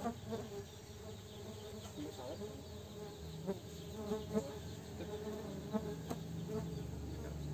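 Stingless bees (Tetragonula biroi) buzzing around their wooden hive box, with single bees now and then whizzing close past in short buzzes.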